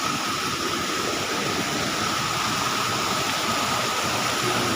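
Steady rush of running water from a mountain stream, with a thin, steady high-pitched whine over it.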